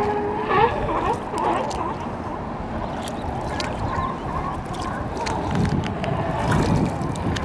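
Sea lions hauled out on a dock barking, several calls overlapping near the start and again later on, over the slosh and gurgle of water around the kayak.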